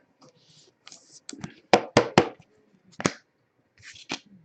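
Baseball cards and packs being handled: soft rustling, then a few sharp taps and clicks, three in quick succession about two seconds in and another about a second later.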